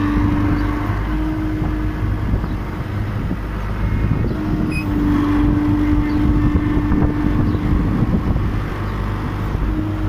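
Case skid steer's diesel engine running steadily under the cab while the joystick raises the loader arms. A steady whine rides over it, dropping out about two seconds in and returning from about halfway to near the end.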